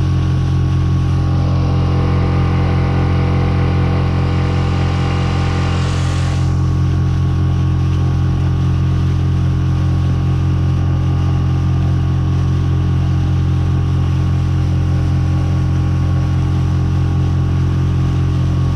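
Outboard motor of a small inflatable boat running steadily under way, its pitch unchanging, with a brief rush of hiss about five seconds in.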